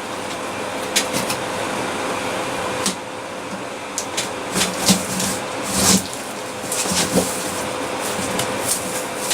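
Large cardboard shipping box being handled and opened: scattered irregular knocks, scrapes and rustles, over a steady background hum and hiss.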